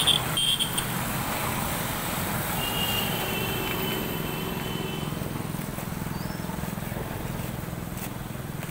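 A vehicle engine idles steadily with a low, even hum. A few short high chirps sound in the first second.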